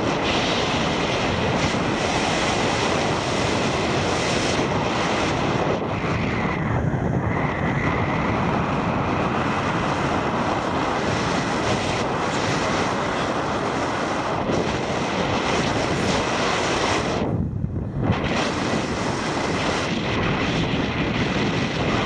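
Steady rush of wind buffeting the helmet camera's microphone at skydiving airspeed, dipping briefly near the end.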